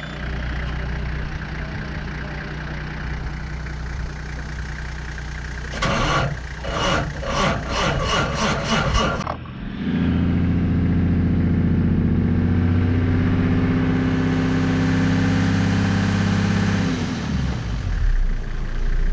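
New Holland TJ375 tractor's six-cylinder diesel being cranked by its starter in a rhythmic run of pulses, catching after a few seconds and running steadily, then stopping near the end with its pitch falling. It is a hard-starting engine. Before the cranking a steady hum is heard.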